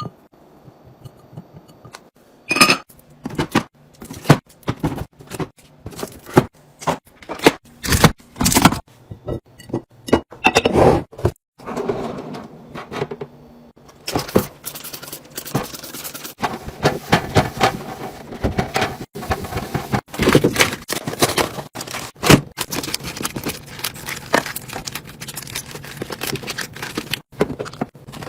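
Handling noises of containers and packaging being restocked: a long run of sharp knocks, clicks, thunks and scrapes as items are set down and moved, busier in the second half.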